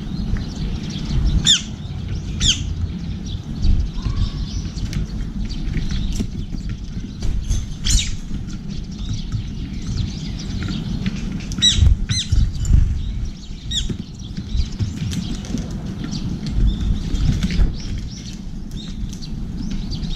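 Eurasian tree sparrows and a brown-eared bulbul at a seed tray: several sharp, steeply falling calls among softer chirps, with wing flutters and the patter of pecking and landing. A steady low rumble sits underneath.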